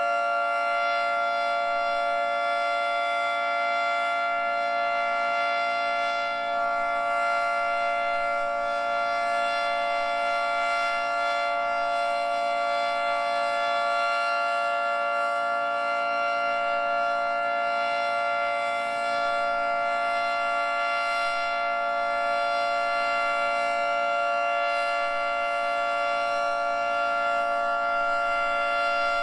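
Federal Signal 2T22 two-tone electromechanical outdoor warning siren sounding its Alert signal: a steady chord held at full pitch, with no rise or fall.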